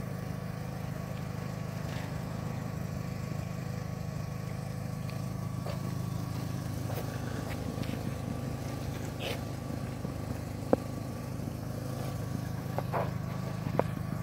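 2003 Volkswagen Beetle's 2.0-litre four-cylinder engine idling steadily, with a few light clicks and one sharp tick about ten seconds in.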